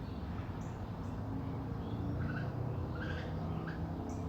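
Several short, faint bird calls over a steady low hum. The calls are strange enough to sound like a bird giving birth.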